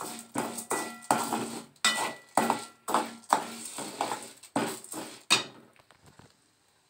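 Perforated steel spatula scraping and knocking around an aluminium kadai while stirring toor dal being dry-roasted, the grains rattling against the pan. About two to three strokes a second, with a faint ring from the pan; the stirring stops a little over five seconds in.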